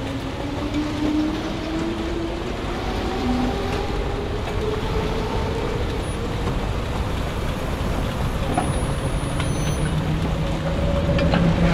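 Launched roller coaster train running along steel track: a steady rumble with a whine that rises slowly in pitch as it gathers speed.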